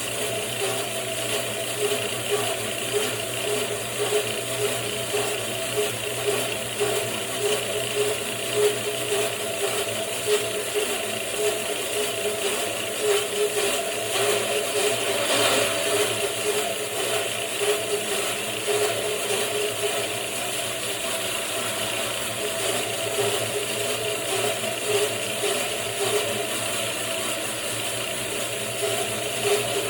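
Bandsaw mill running: a steady mechanical drone with a light rattle.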